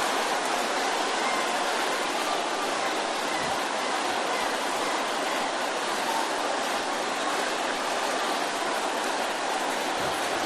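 Large congregation praying aloud all at once, many voices blending into a steady, even wash of sound with no single voice standing out.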